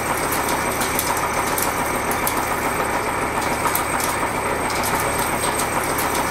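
Seco 335.25 disc milling cutter with indexable inserts cutting into a steel block: a steady, dense, rough cutting noise made of many fine, rapid ticks from the inserts striking the metal.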